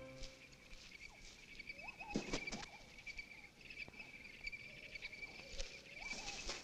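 Faint forest ambience: a steady high insect trill with light rustling ticks, and a few soft rising squeaks now and then.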